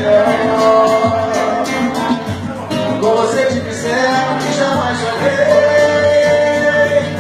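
Man singing a pagode/samba melody to acoustic guitar accompaniment, holding long notes.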